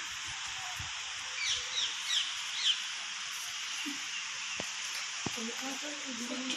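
Steady open-air hiss, with a bird giving about four quick, short, falling chirps about a second and a half in.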